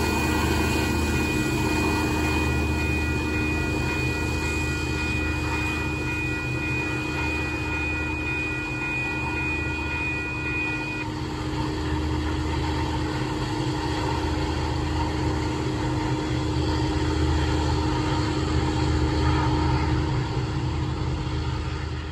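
A Union Pacific coal train with its rear SD70AH locomotive pulling away: a steady low rumble of diesel engine and rolling wheels. A thin high steady whine runs alongside it and stops abruptly about halfway through.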